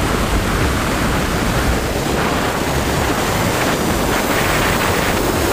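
Steady, loud rush of wind noise on the onboard GoPro microphone of a Twin Star RC plane in flight, with no separate motor tone standing out.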